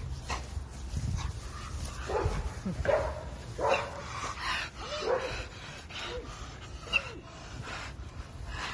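A dog barking and yipping in a string of short calls, starting about two seconds in and running for several seconds.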